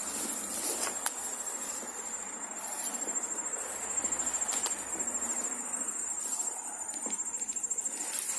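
Crickets chirping: a steady, high-pitched, finely pulsing trill, with a few faint clicks over it.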